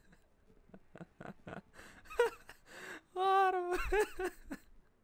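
A man laughing: a few short breathy chuckles, then high-pitched, wavering laughter from about two seconds in, loudest between three and four and a half seconds.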